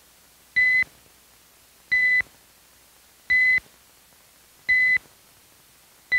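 Short electronic beep tone, high and steady, repeated evenly about every second and a half, five times. It is a timing beep counting off the seconds for a shoot-or-don't-shoot decision.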